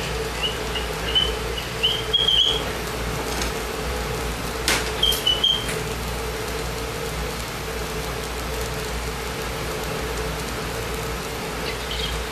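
Propane lampworking torch burning with a steady hiss and hum while the thin glass end is flame-polished in it. Brief high whistling tones come several times in the first few seconds, and again about five seconds in just after a sharp click.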